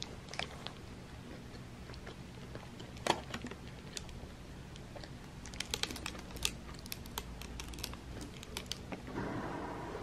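Eating a grilled panini held in a paper wrapper: scattered sharp crunches of crisp toasted bread and crinkles of the paper, in short clusters over a low room hum.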